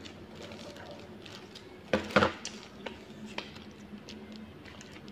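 Clatter of dishes and cutlery: two sharp knocks about two seconds in and scattered lighter clinks, over a low steady hum.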